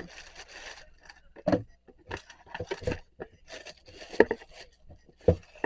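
Irregular scrapes and knocks of objects being handled and moved about, with a few sharper knocks.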